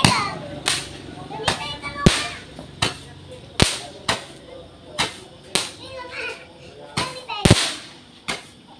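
Firework fixed to a pole going off in a series of sharp cracks, about a dozen at uneven intervals of roughly half a second to a second, while it throws up sparks.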